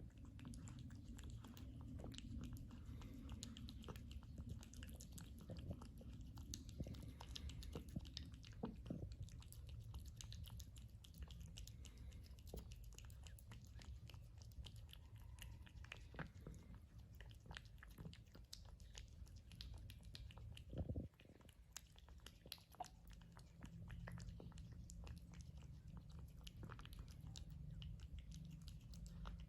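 A cat chewing wet tuna-in-gravy food close to the microphone: a steady run of small, wet clicks and smacks, with one louder knock about two-thirds of the way through.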